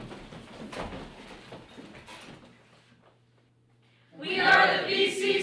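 Rustling and shuffling of capes and feet as a group moves into place, then, about four seconds in, several voices call out loudly together.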